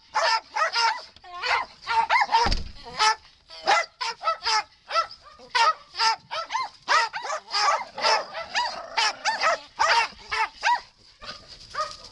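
Dogs barking over and over in short, high barks and yips, two or three a second, dying away near the end.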